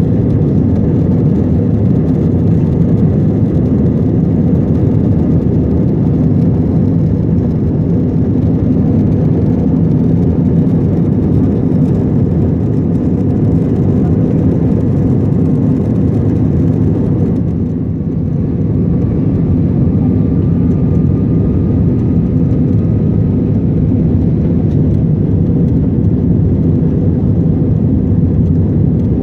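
Airliner engine and airflow noise heard inside the cabin during takeoff and climb: a loud, steady, low sound that dips briefly about eighteen seconds in, after which a faint rising whine joins it.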